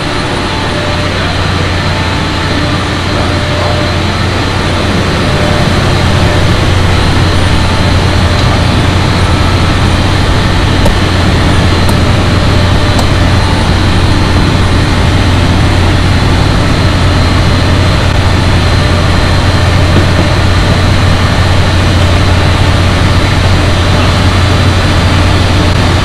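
Steady loud drone of mechanical-room machinery, large ventilation fans and boiler plant, with a strong low hum; it grows a little louder about five seconds in.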